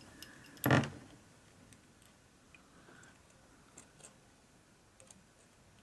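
Faint, scattered clicks and ticks of a small screwdriver turning a tiny screw into a plastic model part, with one short louder sound just under a second in.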